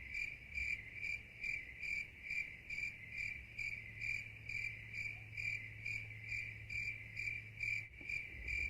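Cricket-chirping sound effect: a steady, even chirp repeating about two to three times a second, used as the stock 'awkward silence' cue.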